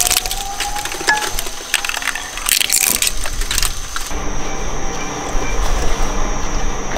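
A shredder crunching and cracking a plastic toy, with sharp cracks for about four seconds. It then runs more steadily with a low hum and a thin high whine, and only a crack now and then.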